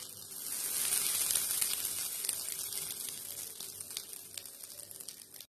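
Hot oil tempering with mustard seeds, urad dal and curry leaves sizzling and crackling as it hits the cool ground chutney. It swells about half a second in, fades slowly, and cuts off abruptly just before the end.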